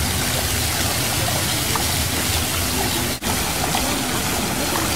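Water from Jean Tinguely's mechanical fountain sculptures splashing and spraying into their shallow basin, a steady rush of water that drops out briefly about three seconds in.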